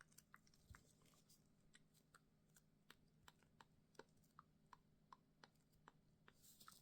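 A run of faint, short clicks and taps, about two or three a second, with a brief soft rustle just before the end.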